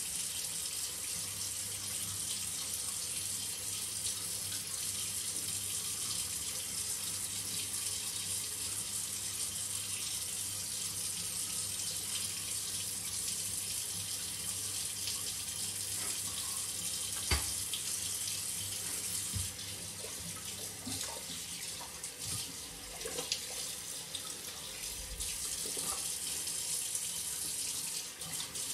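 Water running steadily from a tap, with a single sharp knock about 17 seconds in.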